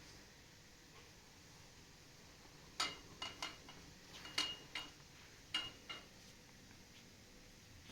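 Light clinks of hard objects knocking together: about eight sharp strikes in an irregular cluster over three seconds, some with a brief ringing note.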